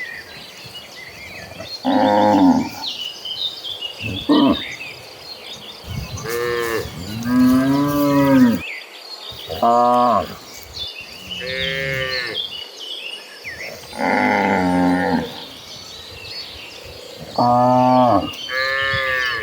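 A herd of cattle mooing: about eight separate moos from several cows at different pitches, some overlapping, with faint high chirping in the background.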